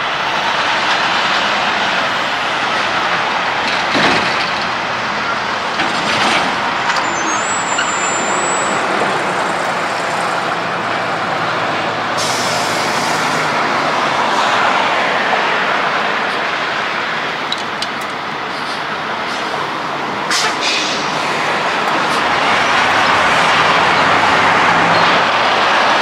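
Semi-trucks rolling past at low speed: diesel engines running and tyres on the road, with a short air hiss about twelve seconds in.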